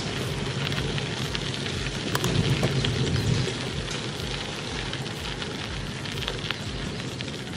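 Bicycle tyres rolling over a crushed-gravel trail: a steady crackling crunch, louder for about a second and a half from two seconds in.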